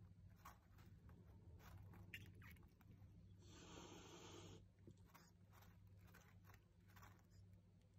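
Near silence: a faint steady low hum with scattered soft clicks, and a brief soft hissing rustle about halfway through.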